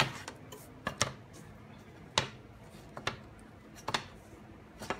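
Sharp clicks and taps, about one a second, from the canvas and its wooden strip being handled and set down on a wooden tabletop.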